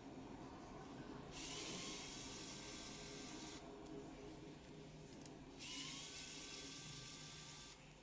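A small handheld tool run in two bursts of about two seconds each, a high-pitched whirring hiss that spins up at the start of each burst and cuts off sharply.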